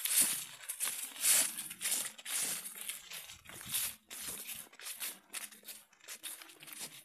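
Footsteps crunching and rustling through dry fallen leaves on a dirt track, about two steps a second in a steady walking rhythm.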